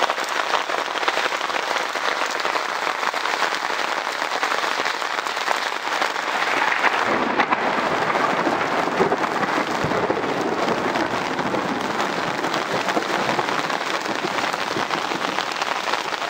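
Steady rain falling on an open umbrella overhead and on wet pavement: a dense, even crackle of drops.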